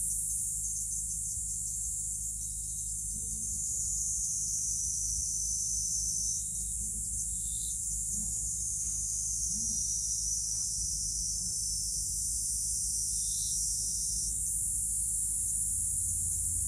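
A steady, high-pitched insect drone, such as a chorus of cicadas or crickets, in a garden. It dips slightly in pitch about six seconds in and comes back up near the end, over a low steady hum.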